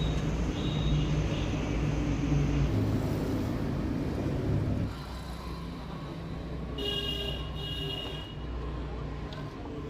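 TVS Apache RTR 160 4V motorcycle running on the road, its engine and chain drive making a steady rough noise. This is the chain noise later traced to a chipped tooth on the 13-tooth front sprocket. The noise drops a little about five seconds in, and a short high tone sounds about seven seconds in.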